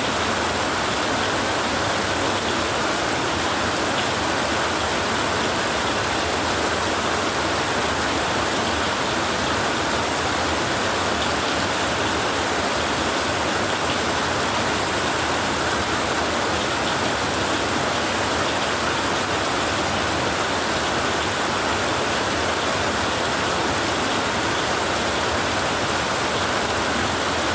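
Heavy rain drumming on a tin roof: a dense, even, unbroken hiss.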